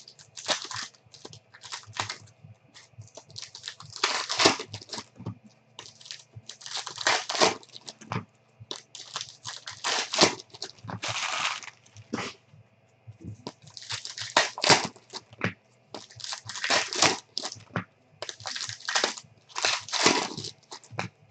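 Foil and clear plastic trading-card pack wrappers being torn open and crinkled by hand, in repeated irregular bursts of crackling.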